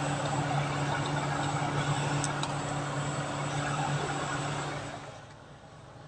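Suzuki F6A three-cylinder engine idling steadily while the cooling system is bled, warm after about 20 minutes of running. The engine sound cuts off about five seconds in.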